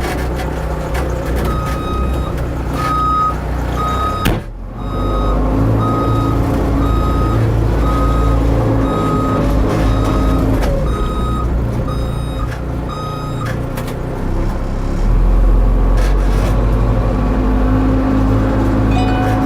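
Case 590 Super M backhoe loader's diesel engine running while its reversing alarm beeps steadily, about one beep every three-quarters of a second: the machine is backing up. The beeping stops and the engine revs up near the end.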